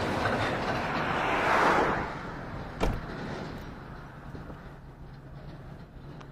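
Road vehicle noise: a rush that swells to a peak just before two seconds in and then falls away, as when a vehicle passes close by. A single sharp knock follows, then a quieter steady low hum.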